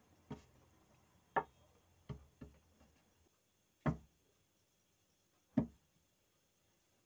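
A woman sneezing: several short, sharp sneezes brought on by paper in the nose, three of them louder than the rest.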